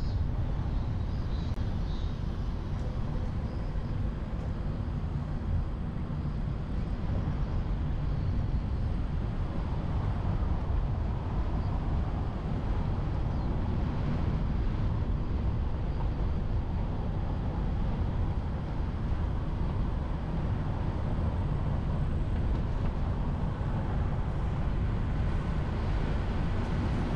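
Steady low rumble of wind buffeting a car-mounted action camera's microphone, mixed with tyre and road noise from the car driving along.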